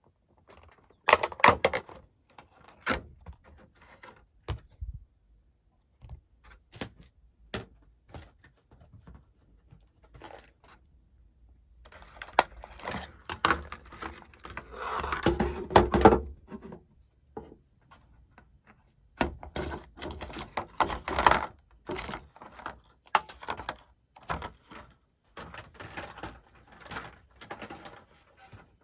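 Hands handling a plastic extension power bar and its packaging: irregular clicks, knocks and light rustling, with busier stretches about halfway through and again a little later.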